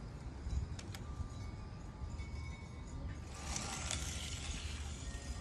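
Die-cast toy cars rolling down a plastic track, with a light mechanical rattle and a louder rush about three and a half seconds in, over the low rumble of wind on the microphone.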